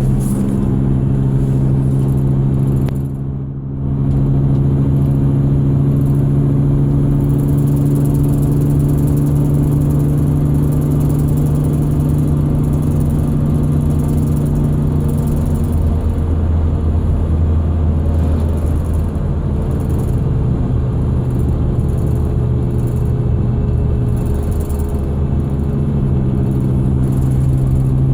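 2001 Ford Excursion running, with a steady whine whose source the owner is trying to track down. The tone drops lower for about ten seconds midway, then comes back up near the end.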